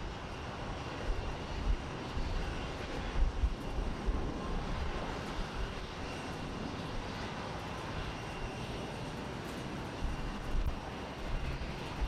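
Jet engines of a Boeing 737 airliner on its takeoff roll, heard from a distance as a steady, even rushing noise.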